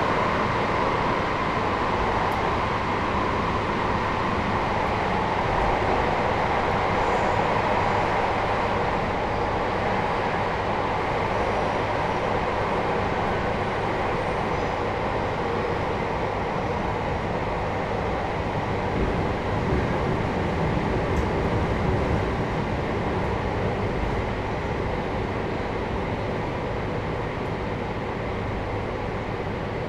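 Running sound inside a JR Hokkaido 721-series electric train car fitted with Toshiba GTO inverter equipment: wheel and rail rumble with the inverter and traction-motor tone, which sinks slightly in pitch during the first ten seconds. A few knocks come around two-thirds of the way through, and the sound eases off near the end.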